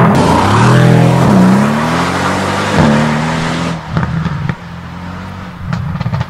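Car engine revving: its pitch dips and then climbs over the first few seconds under a loud rushing whoosh, then drops back to a lower, steady running note with a few sharp clicks.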